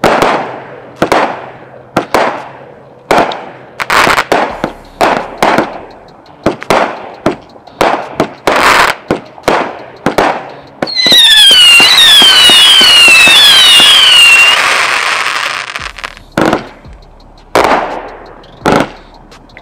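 Giant Show 70-shot XL aerial cake firing its shots: a string of sharp bangs, about one or two a second, each with a short ringing tail. About eleven seconds in, a dense barrage with several falling whistles runs for about five seconds, then single bangs resume.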